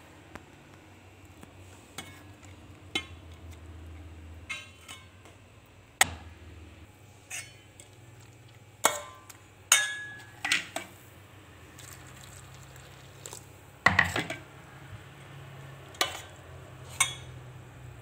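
Steel spoon stirring chopped bilimbi and thick chili paste in a stainless steel bowl: sharp metallic clinks each time the spoon strikes the bowl, scattered through the stirring and bunched near the middle, with softer scraping between.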